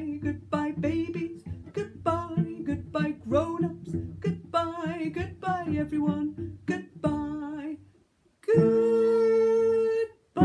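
Goodbye song sung with a strummed plucked-string accompaniment, ending about seven seconds in. After a short pause, a single steady note is held for about a second and a half.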